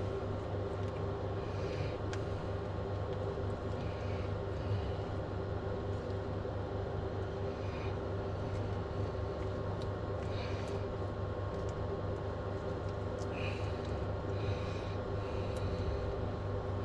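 A steady machine hum, even in level throughout, with a few faint light handling ticks and rustles scattered through it as grease is worked into a linkage's needle bearings by hand.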